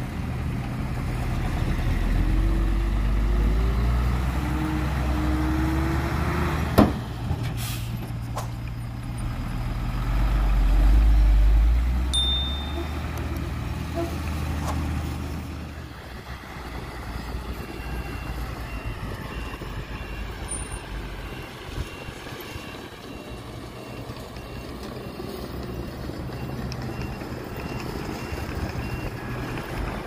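Heavy construction-vehicle diesel engine running, swelling louder around eleven seconds in, with a sharp knock about seven seconds in. It eases off at about sixteen seconds, and from about eighteen seconds a reversing beeper sounds in a steady, evenly repeating high beep.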